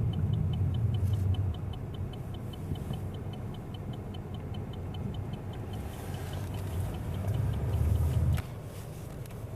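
Car cabin road noise: a steady low rumble of the moving car, which drops away abruptly about eight seconds in. A faint, fast, even ticking, about five a second, runs along with it through the first six seconds.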